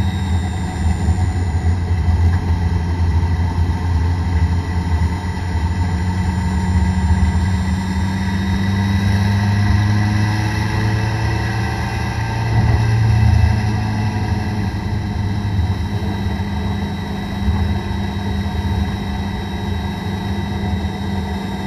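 A Toyota Corolla DX race car's four-cylinder engine, heard from inside the cabin, running at steady, moderate revs with only small rises and falls, typical of running slowly behind a safety car.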